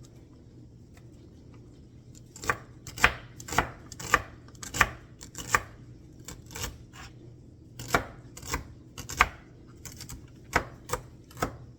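A knife chopping celery on a cutting board: about a dozen sharp knocks at an uneven pace, roughly one or two a second, starting a couple of seconds in.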